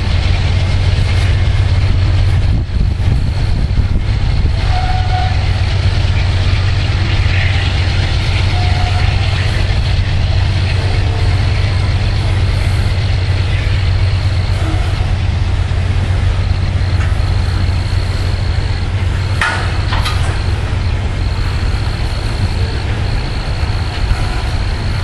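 Loaded coal train's hopper cars rolling past on the track, a steady rumble of wheels on rails. Two sharp clanks come close together about three-quarters of the way through.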